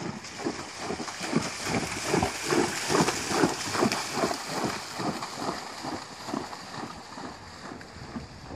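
Horse trotting through a shallow stream, its hooves splashing in the water at about three strides a second. The splashing is loudest a few seconds in and fades as the horse moves away.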